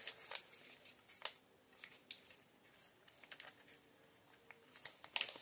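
Faint scattered clicks and light rustling of a small marble packet being handled and torn open by hand, with one sharper click about a second in.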